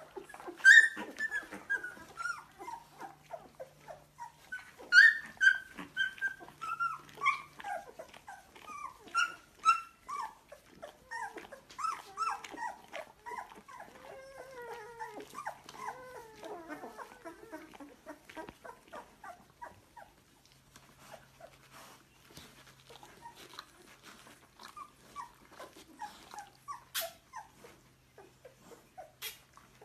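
Newborn yellow Labrador puppies whimpering and squealing: a run of many short, high calls that slide down in pitch. The calls are loudest in the first few seconds and grow sparser and fainter in the second half.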